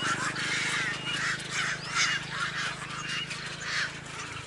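A flock of birds calling over and over, harsh calls several times a second, over a low steady drone that stops near the end.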